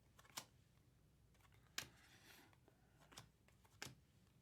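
Topps Chrome baseball cards being handled and flipped through by hand, with four faint, sharp snaps and a brief light rustle.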